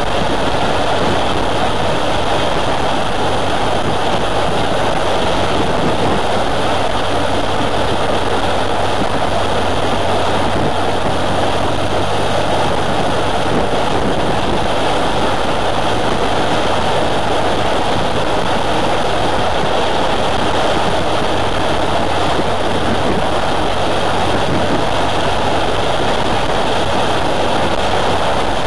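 Motorcycle cruising at steady road speed: a steady engine drone mixed with the rush of wind and road noise on the bike-mounted camera's microphone.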